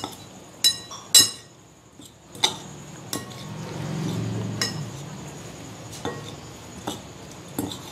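Two metal spoons clinking against a glass mixing bowl as sliced onions and spices are tossed together: about eight sharp, irregular clinks, some ringing briefly.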